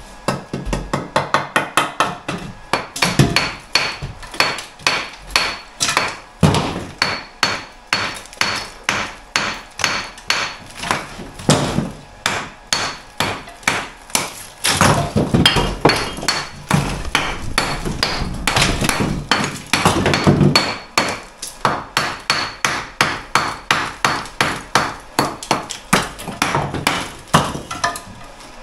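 Hammer blows on old brickwork, about two a second, knocking bricks out of a chimney breast around the fireplace opening.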